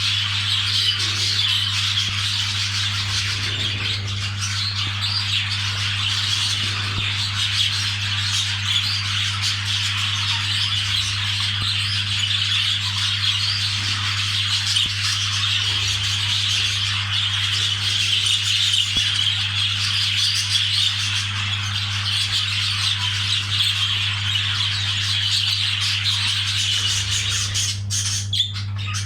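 Budgerigars chattering and warbling without a break, a dense run of squawks and chirps, as budgies do in courtship. A steady low hum runs underneath.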